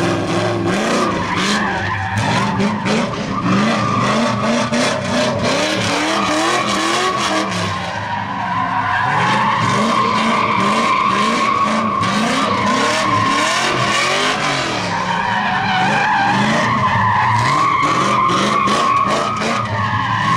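A drift car's engine revving over and over in rising pulls while its rear tyres squeal and skid continuously through a slide. The squeal wavers in pitch.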